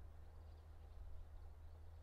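Near silence: a low steady rumble with faint, high bird chirps now and then.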